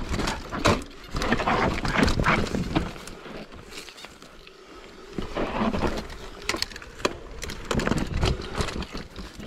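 Mountain bike descending a rocky dirt trail: tyres rumbling and the bike clattering and knocking over rocks and roots. It is roughest in the first three seconds, quieter on smooth dirt around four seconds in, then rattles again over more rocks.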